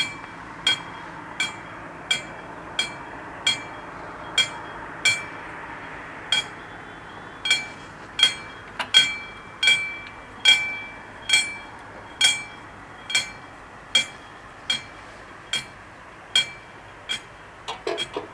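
Level-crossing warning bell striking over and over, about three strikes every two seconds, each strike a sharp hit with a short metallic ring. Near the end a flurry of lighter knocks joins in.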